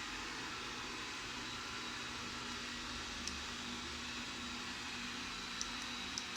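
Robot vacuum cleaner running: a steady whir from its suction fan and brushes, with a few faint light ticks in the second half.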